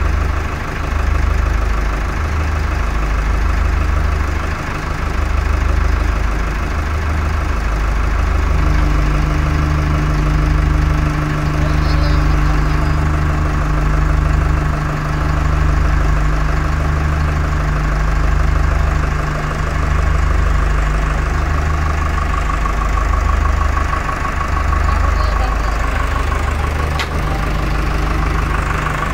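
Powertrac Euro 55 tractor's diesel engine idling steadily. A steady low hum joins it about a third of the way in and drops away near the end.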